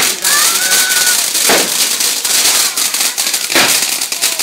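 Fireworks: a spark fountain fizzing and crackling steadily, with a short whistle rising in pitch in the first second and two sharp bangs, about one and a half and three and a half seconds in.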